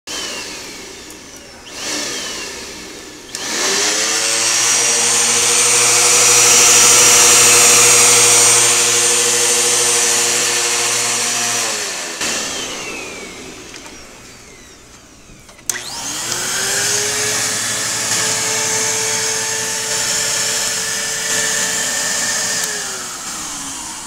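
Upright vacuum cleaner motors switched on twice, each time with a click and a rising whine up to a steady high pitch. The first runs about eight seconds and the second about seven; each is switched off and winds down with a falling whine. Both motors power up and run: working vacuums.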